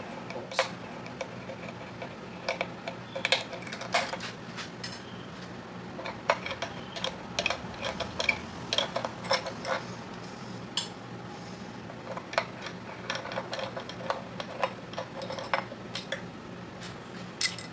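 Allen key turning bolts out of an aluminium jack plate's mounting bracket by hand: scattered light metallic clicks and clinks of the key and bolts against the metal, over a faint steady hum.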